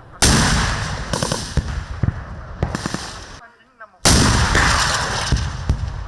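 Military weapons firing on a live-fire range. A loud shot goes off about a quarter-second in and rings out, lighter reports follow near one and two-and-a-half seconds, and after a short lull a second loud shot goes off about four seconds in, each fading away.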